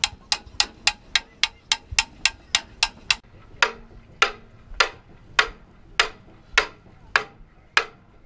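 Hammer blows on the iron tire of a wooden wagon wheel as it is driven down onto the rim during tiring. A quick run of about three sharp blows a second, then slower blows a little over half a second apart with a ringing note.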